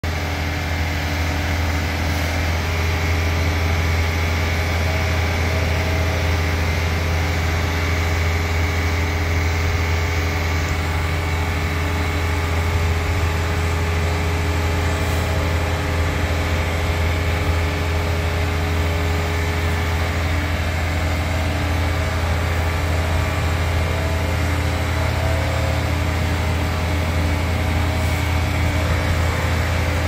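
Boom lift's engine idling steadily, a low, even drone with no change in speed.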